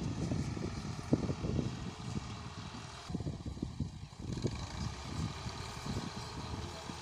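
Fiat tractor's diesel engine working under load as it pulls a plough, heard from a distance as an uneven low rumble.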